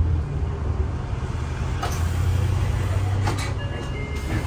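Steady low rumble of a road vehicle running, like a bus, with a couple of clicks and a few short high beeps near the end.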